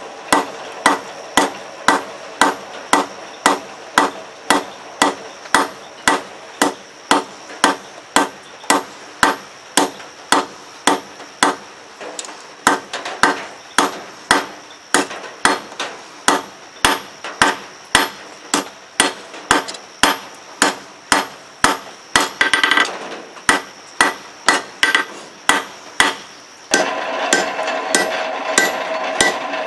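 Hand hammer striking hot 1/2-inch round steel stock on an anvil while forging a small heart hook: a steady run of ringing blows about two a second. In the last few seconds a steady louder noise with a hum runs under the blows.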